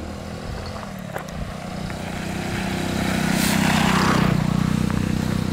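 Motorcycle engine running as a bike rides up a gravel road toward the listener, growing louder to a peak about four seconds in, then easing slightly, with tyre noise on the gravel as it comes closest.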